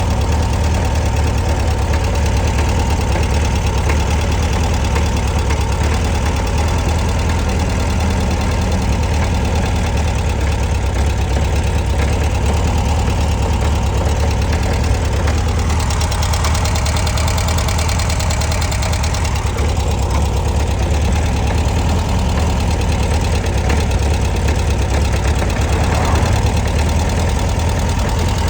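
1966 Volkswagen Beetle's 1300 cc air-cooled flat-four engine idling steadily, with a clunking noise whose cause the owner does not know.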